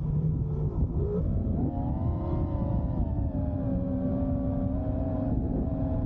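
FPV racing quadcopter's motors and propellers whining in flight. The pitch wavers and dips in the first second or two, then holds fairly steady and sags slowly as the throttle changes.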